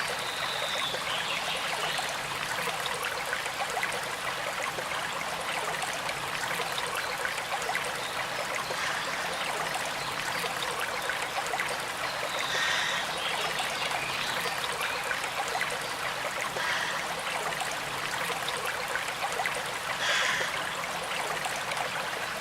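A river flowing steadily, a constant rushing of water. A few short bird calls come through over it, about a second in, around the middle and near the end.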